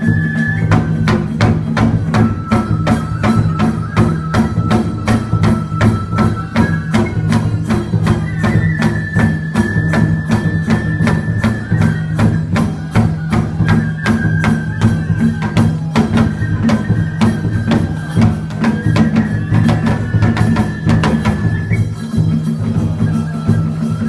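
Traditional Japanese festival music: a bamboo flute plays long held notes over steady, rapid percussion strokes and a low drum-like bed.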